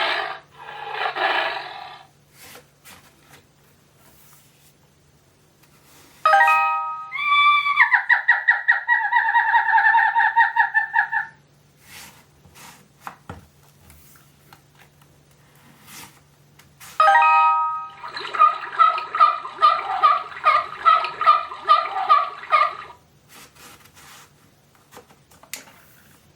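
Electronic sound module of a children's baby-animals sound book playing its clips twice: each is a short chime, then a few seconds of a rapidly pulsing recorded call. Faint clicks fall in the gaps, and a low electronic hum runs underneath.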